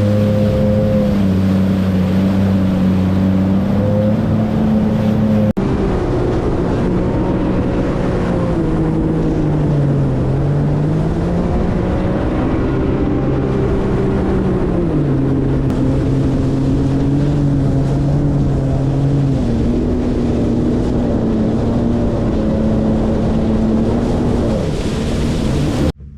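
Yamaha WaveRunner jet ski engine running at speed, its pitch sinking and rising again several times as the throttle is eased and opened, with rushing water and wind under it. The sound cuts off abruptly near the end.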